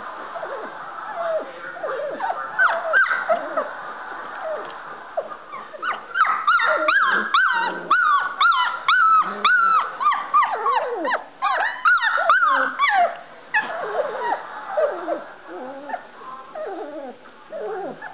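Standard Poodle puppies whining and yipping in many short, high calls that bend in pitch, overlapping and coming thickest in the middle stretch.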